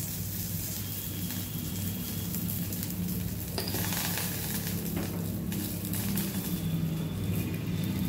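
Green chillies, cumin seeds and curry leaves sizzling in hot oil in a steel kadai as a tempering, with a few crackles about three and a half and five seconds in. A low steady hum runs underneath.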